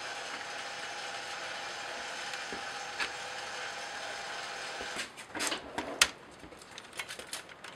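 A steady whirring noise for the first five seconds or so, then plastic clicks and knocks as the parts of a Nerf Brainsaw blaster are fitted back into its plastic shell by hand.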